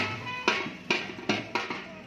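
Procession music: a drum beaten with sharp strokes about twice a second under a sustained melody.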